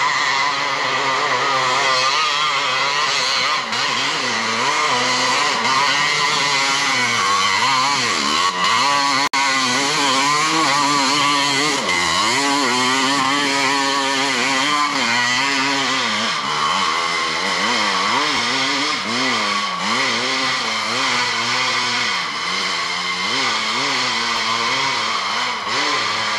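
500cc-class ATV engine revving hard on a steep hillclimb, its pitch rising and falling again and again as the throttle is worked and the wheels spin and grip. The sound drops out for an instant about nine seconds in.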